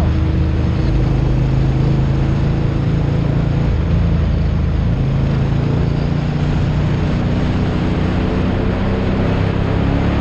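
Engine of a Ducati-powered classic racing sidecar outfit heard onboard, running at a steady pace with a slight dip in engine note a few seconds in, over steady wind and road rush.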